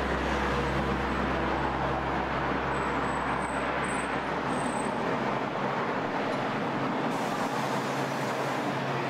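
Steady city road-traffic noise, with a low hum underneath that fades out about two-thirds of the way through.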